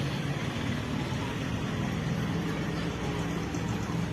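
Steady noise of road traffic, vehicle engines running with a shifting low drone.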